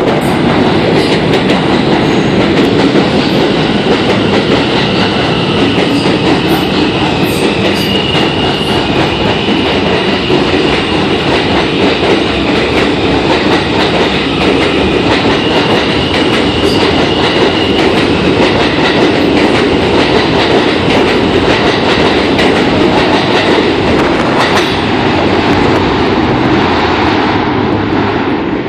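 Alstom R160 subway train running past the platform without stopping: a loud continuous rumble of steel wheels on rail with a steady clicking over the rail joints. A faint high-pitched squeal comes in twice, and the sound drops off near the end as the last car leaves.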